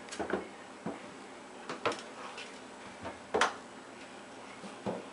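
A series of knocks and bumps from a front-loading washing machine as someone climbs out of its drum and pushes its door open, about six in all, the loudest about three and a half seconds in.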